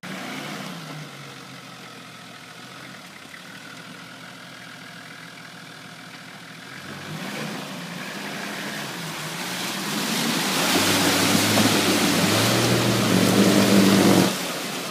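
Nissan Patrol's engine labouring through deep mud, revving harder and getting louder from about halfway, with the tyres churning the mud.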